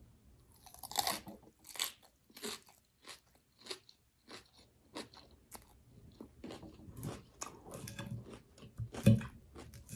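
Crunchy chewing of a mouthful of raw garden salad vegetables, close to the microphone: irregular crisp crunches, getting denser from about two-thirds of the way in, with one louder crunch near the end.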